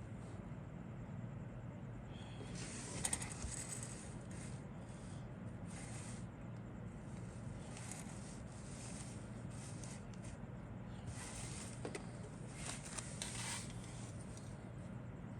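Plastic model kit parts being handled: brief rustling and scraping with light clicks, in several separate bursts over a steady low hum.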